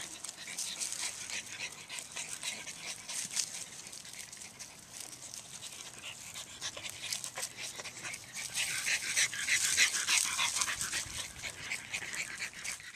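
French bulldogs panting as they run over dry fallen leaves, with a crackle of leaves under their paws. The sound grows louder over the last few seconds as one dog runs up close.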